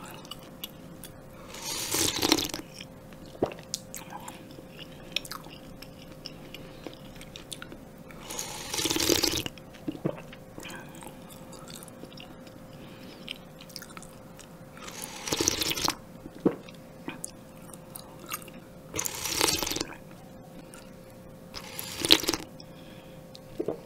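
Slurping spicy jjamppong broth from a large spoon: five loud slurps several seconds apart, with soft mouth sounds and small clicks in between.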